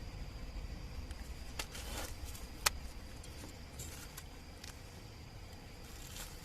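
Night-time insects trilling steadily at a high pitch over a low rumble, with a few scattered clicks and rustles, the sharpest a little over two and a half seconds in.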